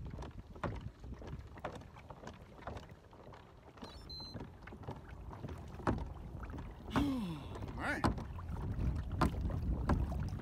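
Pedal-drive fishing kayak under way: a low wind rumble on the microphone with irregular sharp clicks and knocks from the kayak, roughly one a second, and a brief sound falling in pitch about seven seconds in.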